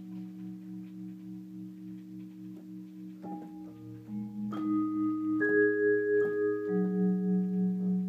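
Vibraphone sound playing slow, sustained chords, each note ringing on with an even pulsing tremolo. New notes come in about three seconds in, and it gets louder from about four seconds as higher notes join.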